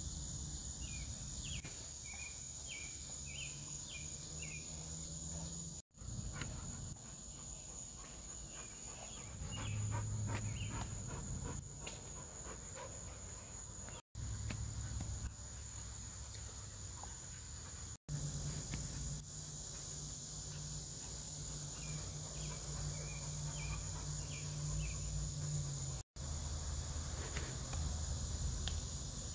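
Steady high-pitched drone of insects, with two runs of short repeated chirps and a low rumble underneath; the sound breaks off briefly four times.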